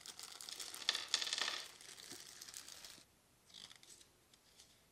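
Thin clear plastic bag crinkling and rustling as small plastic toy pieces are taken out of it, stopping abruptly about three seconds in. Then a brief faint rustle of a small folded paper leaflet being opened.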